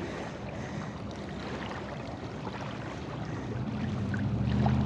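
Steady wind and outdoor noise, then a low engine hum that grows louder from about three and a half seconds in.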